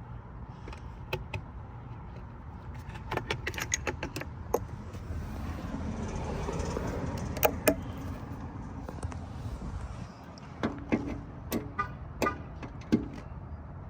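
Steady low rumble of a car, with scattered sharp clicks and metallic knocks from hands working on the back glass and its hinges. A broad rushing swell rises and falls around the middle.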